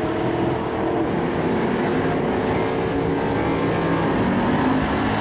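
Cammed Chevrolet LT1 V8 in a Mazda RX-7 held at high revs through a drag-strip burnout, spinning the rear tires. The engine note stays loud and steady.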